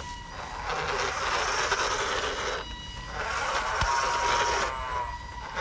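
Plastic toy truck pushed through grass and over dirt: rustling of grass blades and rolling noise from its wheels, in three stretches broken by short pauses.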